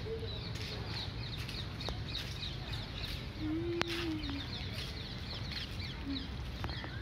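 Many birds chirping in the trees, short high notes coming thick and fast, with a lower call of about a second near the middle and brief low notes near the start and end.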